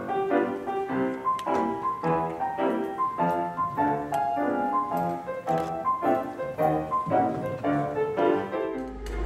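Solo grand piano played live, chords struck in a steady rhythm of about two a second.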